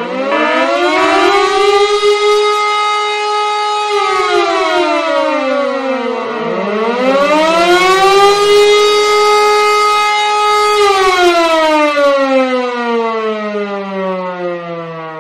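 Air-raid siren sounding an alert wail in two cycles: each time the pitch rises, holds a steady note for a few seconds, then falls, the second fall fading away near the end.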